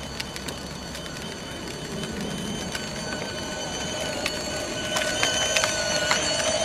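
Power Wheels Batmobile ride-on toy car driving on concrete: its electric drive motor and gearbox whine steadily as the plastic wheels roll, growing louder as it approaches, with a few clicks along the way.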